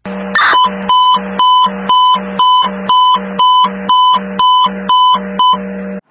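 A short whoosh about half a second in, then an electronic alarm beeping steadily, about two sharp beeps a second over a hiss, cutting off suddenly near the end.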